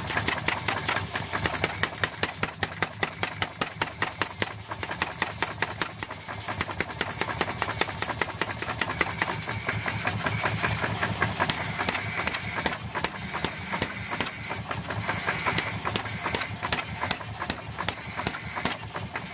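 Power hammer pounding a red-hot axe head held on the anvil, a rapid train of blows several a second over the steady running of its motor.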